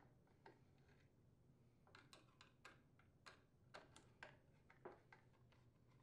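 Near silence broken by faint, scattered small clicks, about a dozen between two and five seconds in: a Torx screwdriver working screws out of a plastic edger handle.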